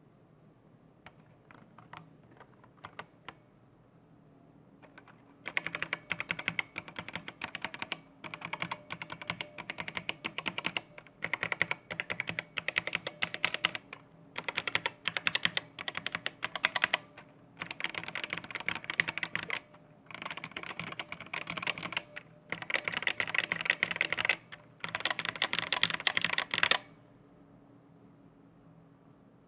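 Zowie Celeritas II keyboard with Adomax Flaretech A optical switches, keys pressed one after another along the rows in quick runs. A few scattered keystrokes come first. Then, about five seconds in, come roughly eight fast runs of clicking with short pauses between them, stopping a few seconds before the end.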